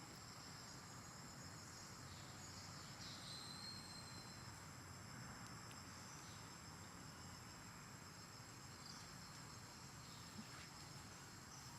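Faint, steady high-pitched insect chorus, crickets or similar, with a few faint short chirps over it.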